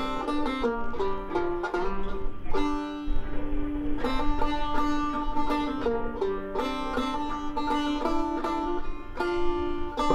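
1902 Cammeyer zither banjo being played: a quick picked melody of bright plucked notes ringing into one another.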